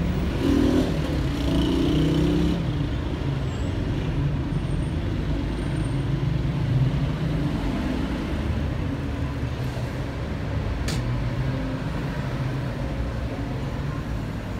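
City street traffic: the steady noise of car and motor-vehicle engines passing on the road, swelling louder for a couple of seconds near the start. A single sharp click about eleven seconds in.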